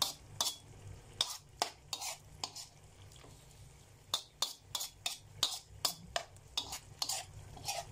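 Spatula clinking and scraping against a wok as chicken pieces in sauce are stirred. It comes in quick, irregular strokes, with a short pause partway through.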